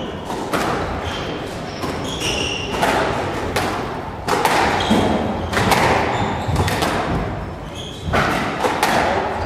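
Squash rally: the hard rubber ball cracking off racquets and smacking the walls and floor in a string of sharp impacts, with short high squeaks from court shoes on the wooden floor.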